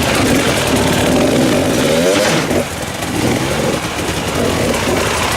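Enduro dirt bike engine revving, its pitch rising and falling as the throttle is worked, with a short dip in level about halfway through.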